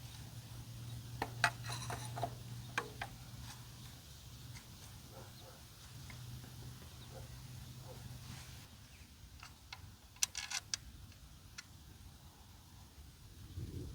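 Hand tools clicking and clinking against engine parts in a few short clusters, over a low steady hum that stops about nine seconds in.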